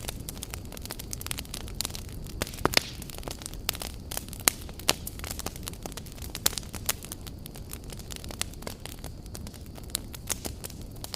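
Wood campfire burning: a steady low rumble of flames with irregular sharp crackles and pops of burning logs, a few louder pops scattered through.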